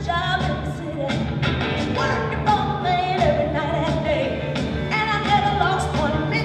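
A song with a singing voice over a steady drum beat.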